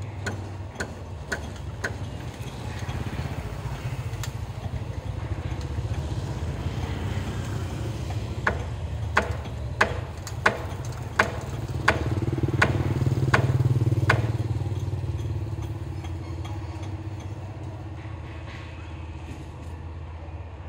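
Hand hammer striking on the roof, about nine sharp blows at an even pace in the middle, with a few lighter taps near the start. Underneath, a steady vehicle engine hum grows louder about two-thirds through and then fades.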